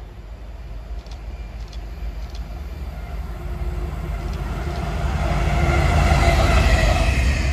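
A Colas Rail Freight Class 70 diesel locomotive, with its GE PowerHaul V16 engine, running light and passing close by. The engine and wheel noise grows steadily louder as it approaches and is loudest in the last couple of seconds.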